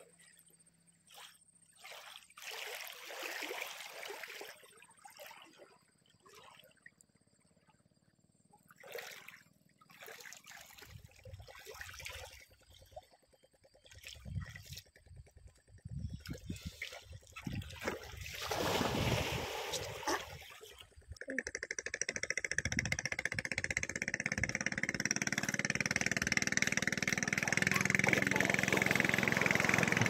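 Small splashes and trickles of lake water at the shoreline, scattered and intermittent. About two-thirds of the way in, a steady noise sets in and slowly grows louder.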